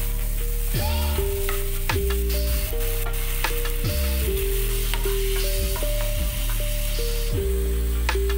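Sliced onions and ginger-garlic paste sizzling in hot oil in a frying pan while a spoon stirs them, under background music with a bass line and a repeating tune.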